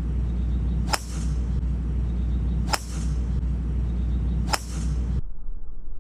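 A golf driver striking the ball three times: sharp cracks about two seconds apart over a steady low rumble.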